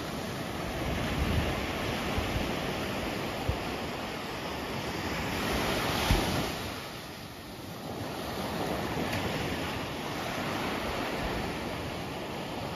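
Ocean surf breaking and washing up the sand, with wind on the microphone. The wash swells to a peak about six seconds in, then falls away.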